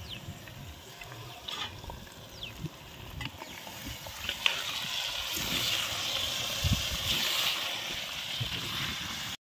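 Raw mutton pieces sizzling in hot oil with onions and garlic in an aluminium pot, stirred with a steel ladle that scrapes and clicks against the pot. The sizzle grows louder about halfway through, then cuts off suddenly just before the end.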